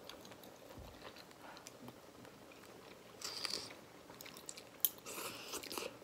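People eating hotpot: soft chewing and mouth clicks, with two short slurps of soup or noodles, one about three seconds in and one near the end, and a sharp click just before the second.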